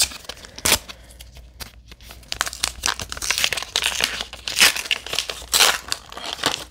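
Plastic and card toy packaging crinkling and rustling as it is handled, with a sharp crackle a little under a second in and denser crinkling from about two seconds on.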